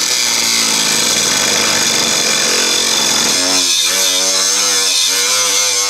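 Electric angle grinder grinding steel, its disc pressed against a welded nut and plate on the inner rocker to clear room for a new rocker panel. The grinding noise is loud and steady, and about halfway through the motor's whine comes forward and dips slightly a couple of times as the disc is bearing on the metal.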